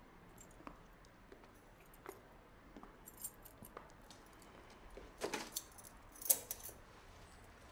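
Small clicks and clinks of handled objects, with two louder bursts of metallic jingling clatter about five and six seconds in.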